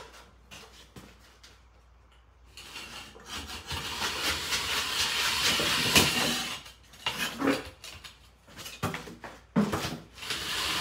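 Metal clattering and scraping on a concrete floor as the removed lawn-tractor engine is shifted aside: a dense rattle from about three seconds in, loudest around six seconds, then a few scattered knocks.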